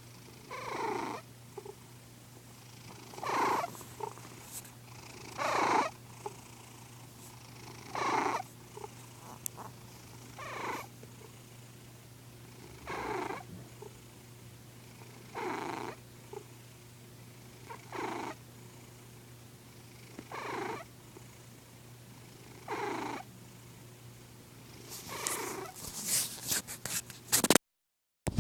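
An old cat snoring in its sleep, one snore on each breath about every two and a half seconds, with a flurry of clicks near the end.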